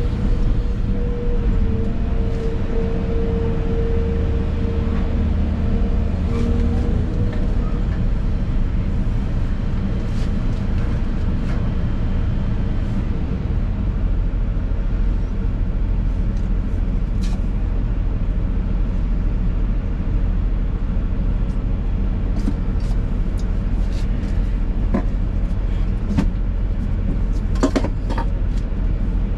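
Excavator's diesel engine running steadily under load, heard from inside the cab, with a steady whine for the first several seconds that then stops. Several sharp metallic knocks come near the end.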